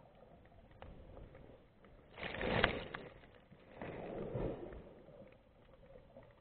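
Muffled underwater water movement from a diver swimming, with two louder rushing swishes of about a second each, around two and four seconds in.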